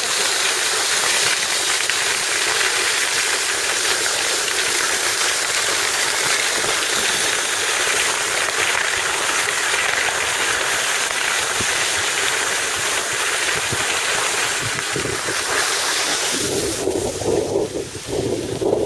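Steady rushing hiss of skiing downhill on a groomed snow track, skis sliding fast over packed snow. A few seconds before the end it gives way to an uneven, lower, fluttering sound.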